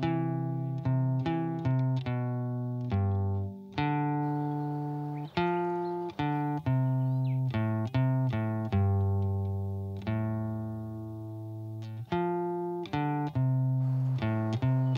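Background music: a plucked guitar playing a melody, each note struck sharply and then ringing out and fading, some in quick runs and some held longer.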